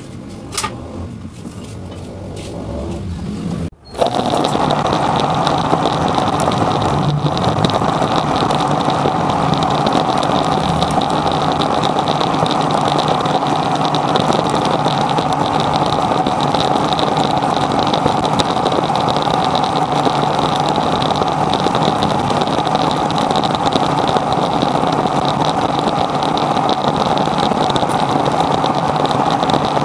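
Metal lathe running steadily while turning a plastic valve part, with a steady motor-and-gear whine. It starts abruptly about four seconds in; before that there is quieter handling and a single sharp click.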